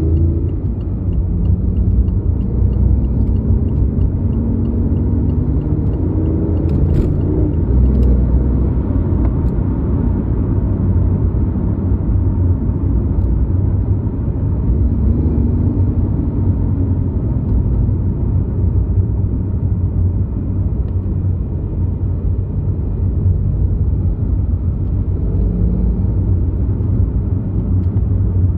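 BMW i8 hybrid sports car being driven: a steady low road and drivetrain rumble, with the pitch of the drive rising and falling several times as the car speeds up and slows. A light regular ticking sounds in the first second or so, and a sharp click comes about seven seconds in.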